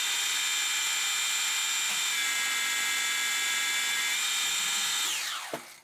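Metal lathe turning a mild steel bar with a carbide insert: a steady, high-pitched multi-tone whine from the spinning spindle during the cut. About five seconds in, the whine falls in pitch as the spindle slows, then cuts off abruptly.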